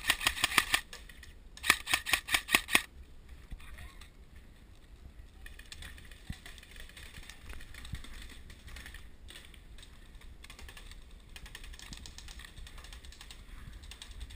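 Airsoft gun firing two short bursts of rapid clicking shots in the first three seconds, followed by fainter scattered shots further off.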